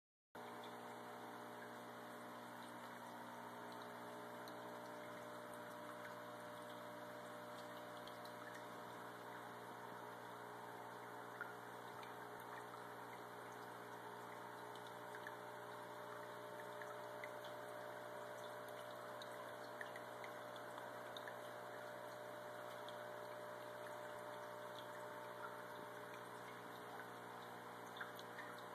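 Faint steady hum of an aquarium pump, with water trickling and a few small drips now and then.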